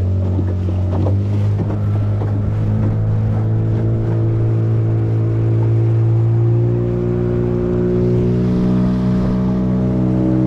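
Engine of a small aluminium river boat running steadily under way, its pitch rising slightly a few seconds in, then holding.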